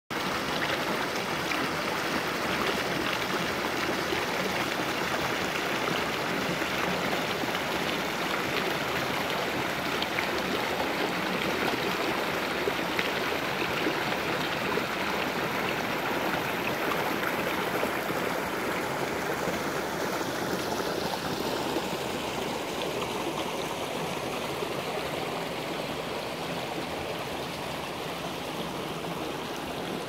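Small rocky mountain brook rushing over stones and a little cascade, a steady splashing flow that grows a little softer and duller in the last third.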